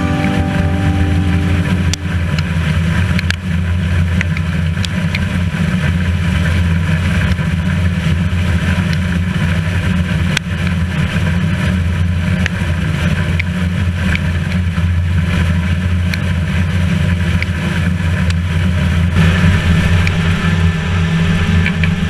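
New Holland TR88 twin-rotor combine running under load while harvesting corn: a steady, loud, deep drone of engine and threshing, with scattered sharp ticks of stalks and debris striking the machine. The sound shifts slightly near the end as it comes out of the standing corn.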